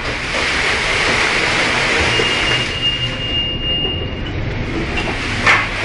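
Storm wind and sea noise heard aboard a container ship under way in heavy seas, over a steady low hum. A thin high whistle sounds for about two seconds in the middle, and a thump comes near the end.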